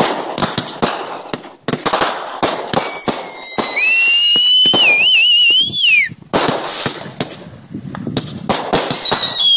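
Fireworks going off in a dense run of sharp cracks and bangs. High whistling tones waver and glide from about three seconds in until about six seconds, and start again near the end.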